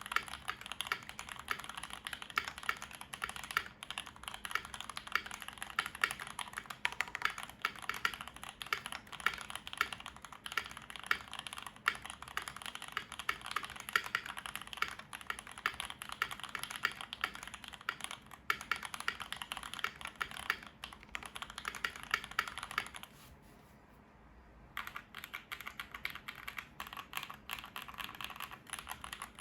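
Keychron V1 mechanical keyboard with lubed and filmed NK Dry Black linear switches, a steel plate and GMK Space Cadet keycaps being typed on quickly, a steady stream of keystrokes. The typing stops for about two seconds late on, then carries on.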